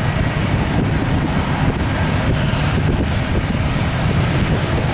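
Union Pacific, Norfolk Southern and BNSF diesel locomotives approaching at the head of a freight train, engines working under load with a steady low rumble. Wind buffets the microphone.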